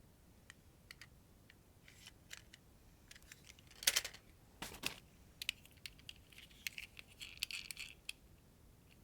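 Small hard diecast toy cars and plastic parts being handled: scattered clicks and clatters, two louder knocks about halfway through and a quick run of light taps and rattles near the end.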